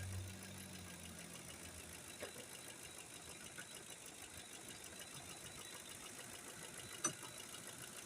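Ford 5.4-litre V8 in a Lincoln idling steadily with fine rapid ticking, under a suspected misfire on the number 3 cylinder from a broken coil-on-plug harness wire. A low hum fades out in the first second, and a single sharp click comes about seven seconds in.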